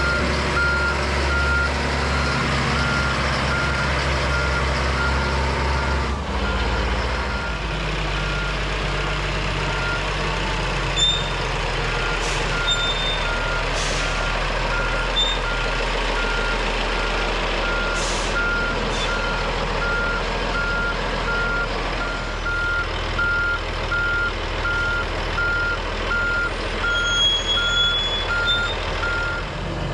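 Diesel earth-moving machine running, its engine note shifting about six seconds in, with its backup alarm beeping steadily as it reverses.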